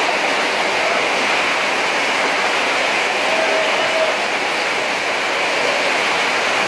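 Flash floodwater rushing down a street in torrential rain, a loud, steady rush of water noise.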